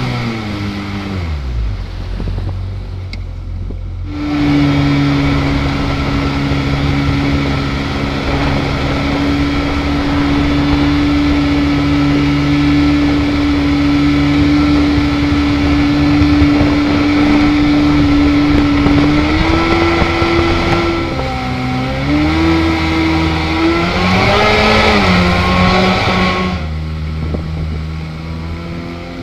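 Jet boat engine driving its water jet: the revs fall back at first, then open up about four seconds in and hold a steady drone for about fifteen seconds. Near the end come several throttle changes up and down, over a constant rush of water and wind.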